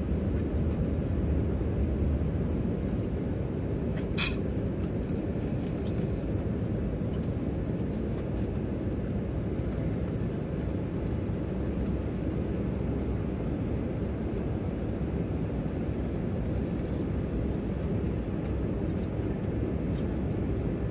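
Steady low cabin noise of an Airbus A320-family airliner's jet engines and rushing airflow during the climb after takeoff, heard from inside the cabin. A brief sharp high sound comes about four seconds in.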